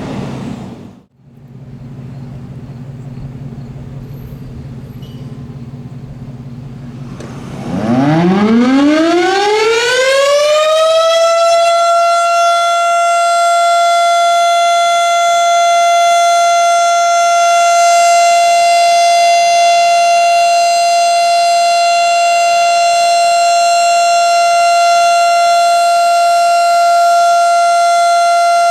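Federal Signal STH-10 electromechanical outdoor warning siren spinning up about eight seconds in, its pitch rising over about three seconds, then holding one steady, loud tone for its weekly test.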